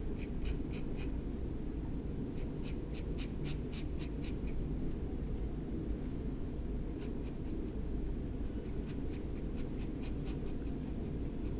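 Steel dip-pen nib scratching on paper while inking, in clusters of short quick strokes with a pause in the middle, over a steady low hum.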